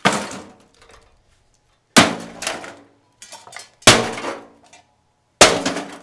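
A Homemaker EM930AH1 microwave's sheet-metal casing and internal parts being smashed with heavy blows: four loud crashes, roughly two seconds apart, each followed by rattling metal and scattering debris.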